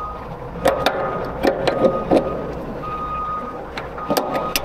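Diesel truck engine idling, with a backup alarm beeping repeatedly and several sharp metallic clicks and clanks.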